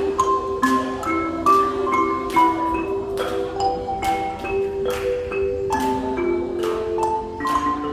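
Ocarina ensemble playing held, pure-toned melody notes over struck, ringing mallet-percussion notes that fall about twice a second.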